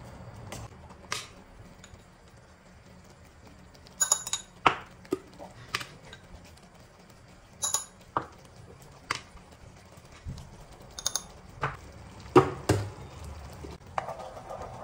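Kitchen clinks and taps as spices are spooned from small jars into a pan of tomato sauce: a dozen separate knocks of spoon, jar and lid, a few with a short metallic ping, the loudest pair near the end. In the last second a spatula starts stirring the sauce in the pan with a soft continuous scraping.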